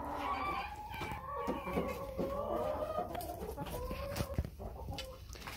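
A flock of domestic hens clucking, several long wavering calls overlapping one another.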